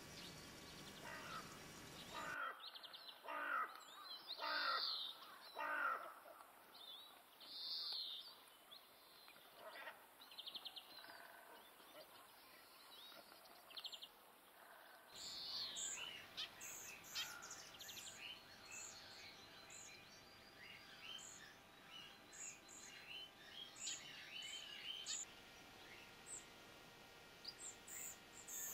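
Wild birds calling: a run of loud calls in the first half, then many short high chirps and twitters.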